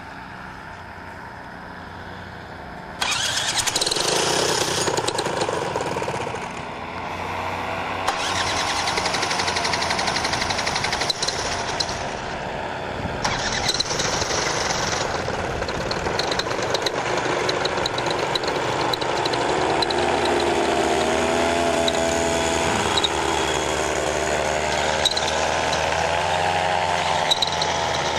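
Paramotor engine starting up about three seconds in and then running loud and steady, its pitch wavering up and down near the end.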